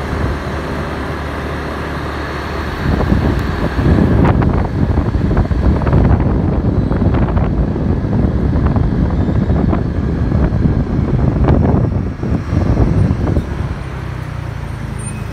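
City road traffic heard from a moving vehicle: steady engine and tyre rumble that grows louder and uneven from about three seconds in, then eases near the end.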